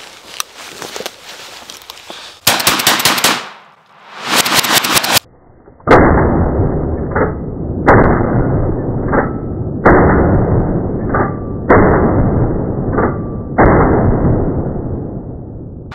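Remington 11-87 12-gauge semi-automatic shotgun fired five times in quick succession, about two seconds apart, each shot followed by a long echoing tail. Before the shots come two loud bursts of noise, each about a second long.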